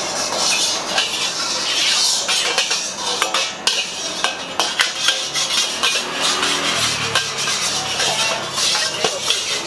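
A metal wok spatula scraping and clanking repeatedly against a steel wok as a wet, steaming wok is scrubbed out over a hissing gas burner.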